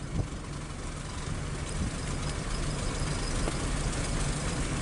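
Car engine and road noise heard from inside a slowly moving car: a steady low rumble that grows a little louder toward the end.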